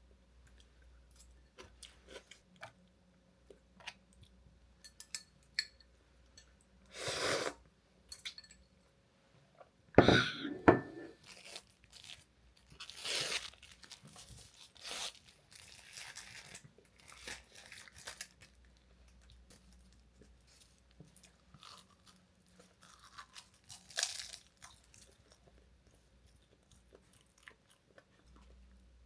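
Someone eating at close range: crunching and chewing, with scattered small clicks and several short, louder noisy bursts, the loudest about ten seconds in.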